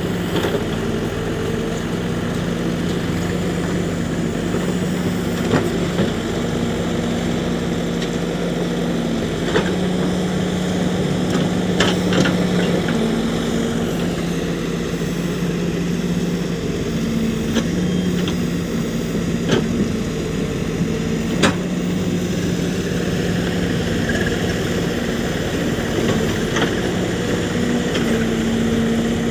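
Heavy diesel engine running steadily, its pitch shifting slightly now and then, with a few sharp knocks scattered through.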